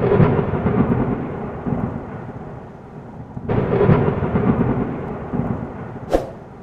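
Thunder sound effect: two rolling thunderclaps, each starting suddenly and dying away over about three seconds, with a brief whoosh near the end.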